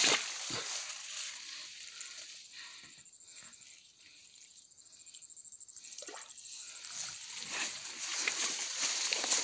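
Hands sloshing and groping in shallow marsh water among grass stems, with grass rustling. The sound thins out and goes quiet in the middle, then a louder rustling of grass and a sack builds near the end.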